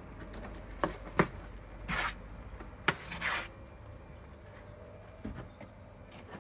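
Bricklaying handwork: a few sharp knocks of brick and steel trowel, the loudest about a second in, and two short scrapes of the trowel cutting through mortar on the board.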